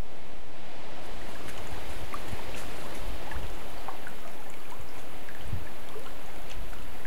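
Wind rumbling on the microphone, joined about a second in by a small river running, with many irregular small trickles and plops.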